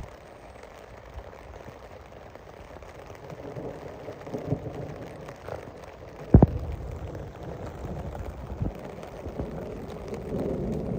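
Steady rain falling, with low rumbling swells rising and fading, and one sharp knock about six seconds in.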